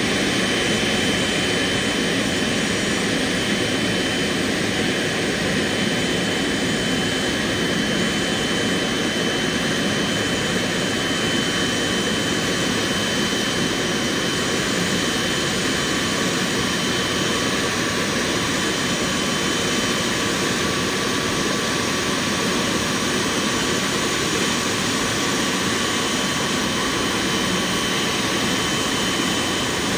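Boeing 777 turbofan jet engines idling: a steady, even rush of engine noise with a thin, steady high whine over it.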